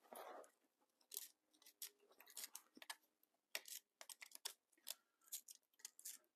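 Faint, scattered clicks, taps and scrapes of a hand tool and gloved hands working at the screws of a Suzuki TS185's aluminium engine case.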